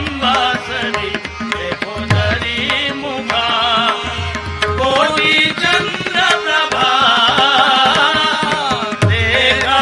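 Marathi gavlan devotional music: a continuous, gliding melody line over hand-drum accompaniment, with deep bass drum strokes landing every few seconds.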